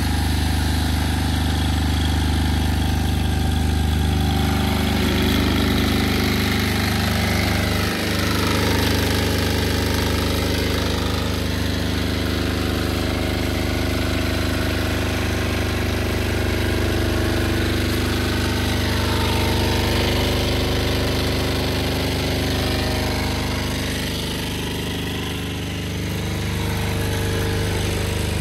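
Stephill SSD6000 6 kVA generator's single-cylinder Yanmar diesel engine running steadily at constant speed, with a low, even drone.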